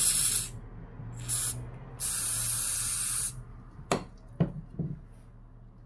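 Aerosol can of OCA glue remover hissing in bursts as it is sprayed under a phone battery to loosen the adhesive holding it down. One spray ends about half a second in, a brief one comes about a second in, and a longer one of over a second starts about two seconds in. Three light taps follow.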